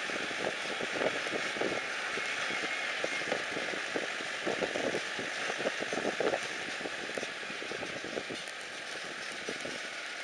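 Vehicle driving along a road: a steady hiss of road and tyre noise with irregular knocks and rattles, easing off slightly about seven seconds in.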